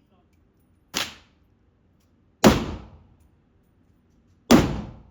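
Three gunshots about a second and a half to two seconds apart. The first is fainter, and each dies away over about half a second.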